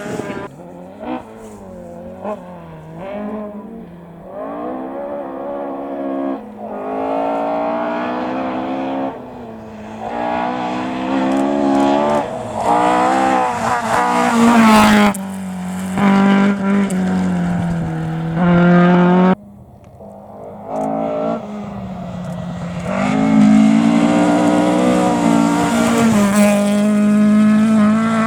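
Historic rally cars at full throttle on a stage, engines revving up through the gears with repeated climbs and drops in pitch at each gear change. The sound cuts abruptly between several cars in turn.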